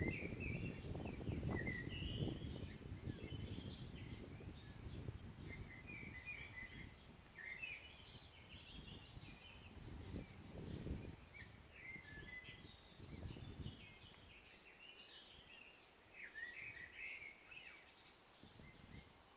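Several small birds chirping and singing in a forest, in short high phrases throughout. A low, uneven rumbling noise underneath is strong for the first half and fades out after about 14 seconds.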